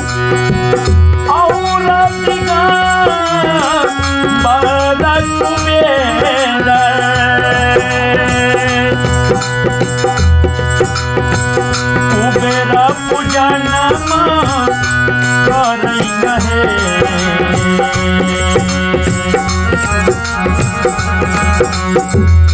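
Maithili devotional song played on harmonium with dholak drum and small hand cymbals (jhal), a man singing a melody that bends and glides over the harmonium's held chords. The dholak keeps a steady beat.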